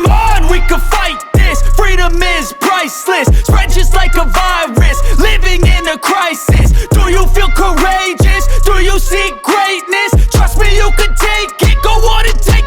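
Hip-hop music with a heavy bass beat that hits about every second and a half.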